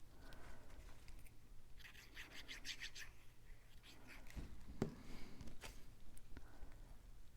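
Faint handling of small cut paper pieces, rubbing and scratching. A quick run of small clicks comes about two seconds in, and a few light taps follow a couple of seconds later.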